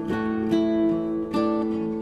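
Instrumental music: an acoustic guitar playing plucked notes, a new note or chord sounding about every half second.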